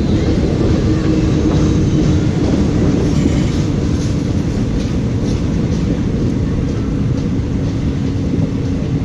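Passenger train coaches running along the track, heard from the side of a moving coach: a steady wheel-on-rail rumble with faint recurring rail-joint clicks and a low hum that sinks slightly in pitch.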